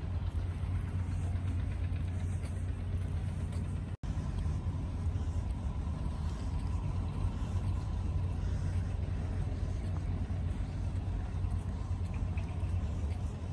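A running engine: a steady low rumble, broken by a momentary cut to silence about four seconds in.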